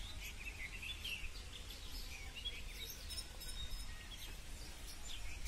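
Outdoor field ambience: small birds chirping with brief, high calls scattered throughout, over a low steady rumble.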